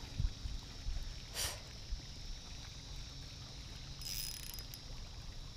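Wind rumbling on the microphone and water lapping at the shore, with a brief high whirr from the spinning reel about four seconds in as a hooked fish is brought in.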